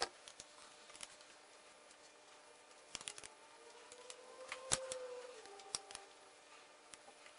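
Faint, scattered clicks and light taps of small metal parts being handled and fitted by hand: a clutch hose clamp extension bracket and screw at a motorcycle's handlebar clamp. The sharpest click comes a little under five seconds in.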